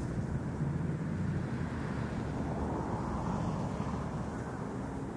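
Twin outboard motors of a center-console boat running at speed, a steady drone mixed with the rush of its wake on the water, easing off slightly near the end.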